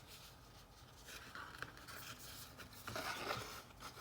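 Faint rustling and rubbing handling noise with a few light clicks, louder about a second in and again near the end.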